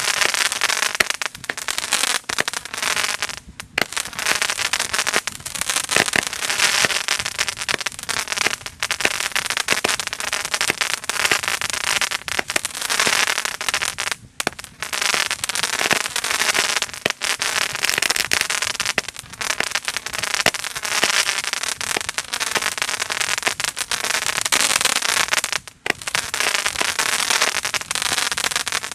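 Chupacabra firework barrage of crackling comets: a dense, continuous spray of crackling and popping, with shots going up one after another. There are three short lulls, about 3 s, 14 s and 26 s in.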